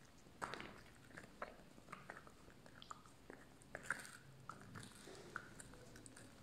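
A puppy gnawing and chewing a big bone: irregular small crunches and clicks of teeth on bone, with louder crunches about half a second in and again near four seconds in.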